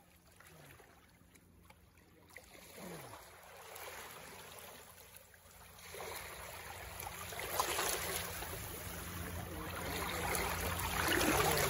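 Shallow water splashing and lapping around hands holding a steelhead submerged for release. Very faint at first, it grows louder from about six seconds in.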